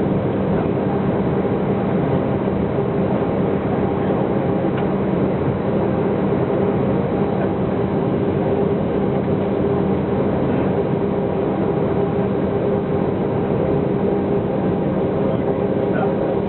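Airbus A321-100 airliner's jet engines running with a steady, unchanging drone: a few held tones over an even noise.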